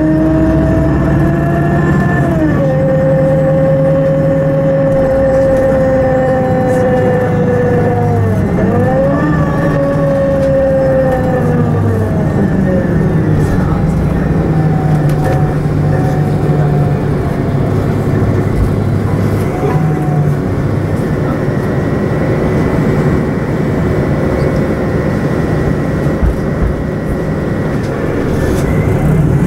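City bus running heard from inside, its engine and drivetrain rumbling with a whine whose pitch glides down and back up as the bus slows and pulls away again.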